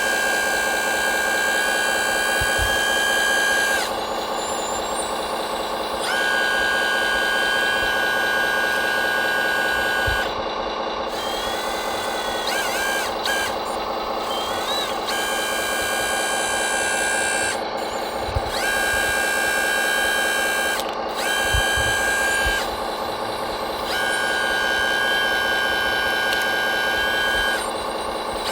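Radio-controlled model construction machinery running: a steady electric hum, with a higher motor whine that starts and stops every few seconds as the machines are worked. A few short sliding tones come near the middle.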